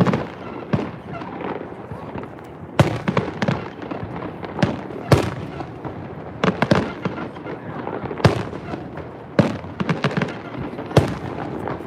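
Fireworks going off in a display: a dozen or so sharp bangs at irregular intervals, with crackling between them.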